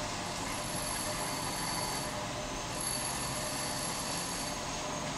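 Steady hum of running machinery with a thin high whine on top; the whine drops out briefly about two seconds in and again near the end.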